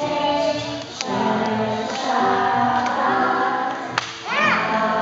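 A group of young children singing together with a woman's voice leading, a song sung with hand motions. The singing breaks off briefly about four seconds in, then resumes with a high voice swooping up and down.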